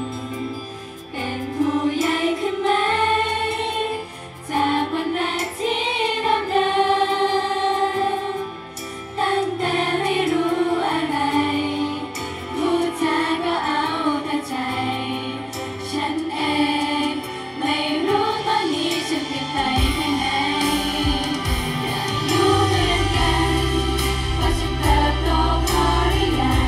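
Thai idol girl group singing a pop song in unison, live over a stage PA. A heavy bass and beat come in about twenty seconds in.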